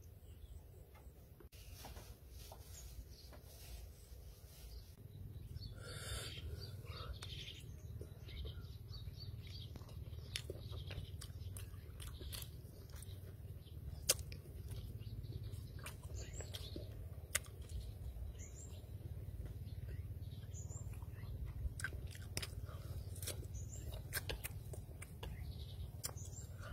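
A person slurping and chewing instant noodles with sharp wet mouth clicks, the loudest about halfway through, over a steady low rumble.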